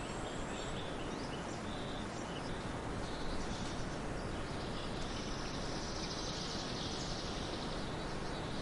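Small birds chirping faintly over a steady hiss of background noise. Short high chirps come scattered through the first few seconds. From about five seconds in, a longer, high, buzzy trill lasts about three seconds.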